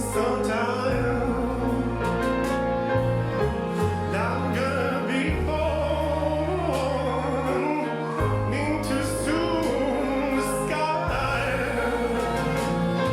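A slow, sung ballad: long held low piano notes under a high, wavering voice drawing out its lines.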